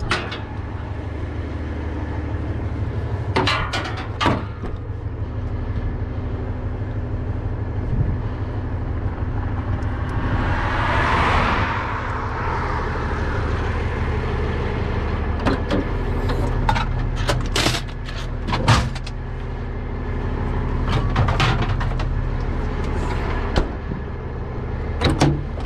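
Heavy truck diesel engine idling with a steady low hum, with scattered metal clinks and knocks. A rushing whoosh swells and fades around ten to thirteen seconds in.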